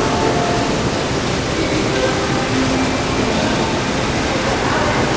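Indoor mall fountain: a steady rush of falling water.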